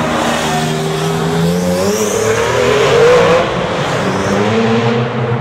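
Sports car engine accelerating hard through a road tunnel, its pitch climbing to a peak about three seconds in, then easing off as another engine starts to rise near the end.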